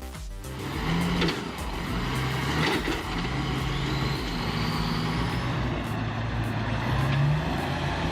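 Heavy machine's engine running, its pitch rising and falling several times as the load changes.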